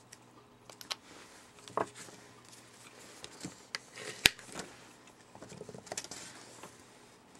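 A plastic card scraped across a metal nail-stamping plate to clear off the excess polish: scratchy scraping with scattered light clicks and taps, the sharpest click about four seconds in.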